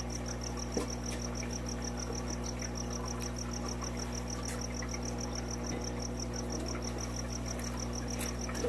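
Steady low electrical hum under an even, high-pitched chirping that pulses about eight times a second without a break, like a cricket.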